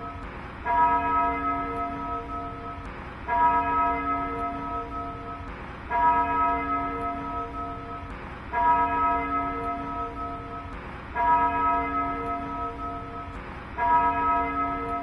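Tower clock's digital carillon sounding the hour strikes: one bell tone struck six times, about every two and a half seconds, each ringing on and fading until the next.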